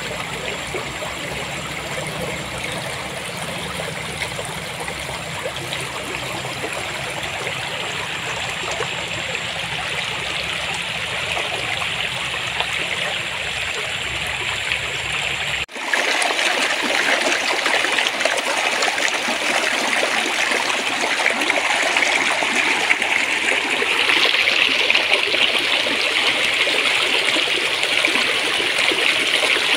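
Shallow stream of clear water babbling and trickling steadily. About halfway through it cuts suddenly to a louder, brighter stretch of flowing water.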